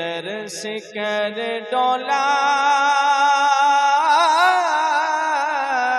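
A man singing a Punjabi devotional kalam, stretching a line into a long held note from about two seconds in with a wavering ornament partway through.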